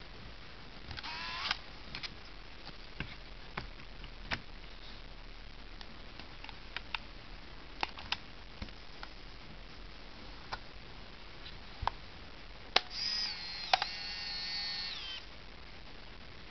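Scattered small clicks of a Contax T2 compact film camera being handled while it is loaded with 35 mm film. Near the end, just after a sharp click, the camera's film-advance motor whines for about two seconds and stops abruptly, winding the newly loaded film on to the first frame.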